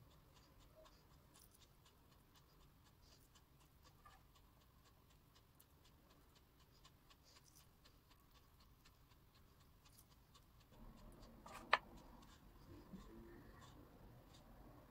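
Faint kitchen handling sounds: fingers pressing minced-meat stuffing into the cuts of a scored aubergine on a wooden cutting board, with many small soft clicks. Near the end the handling gets louder, with one sharp knock.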